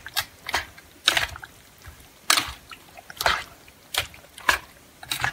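Raw chicken pieces squelching and slapping in a yogurt marinade as they are stirred around a stainless steel bowl: short wet strokes at uneven intervals, about one every half second to a second.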